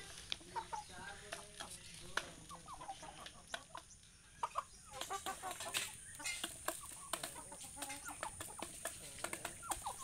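Young Aseel chickens clucking in short, soft calls while pecking grain from a plastic feeder pan, with many sharp taps of beaks against the plastic.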